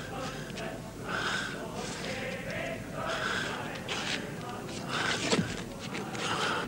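A man breathing hard: heavy, gasping breaths, one about every one and a half to two seconds.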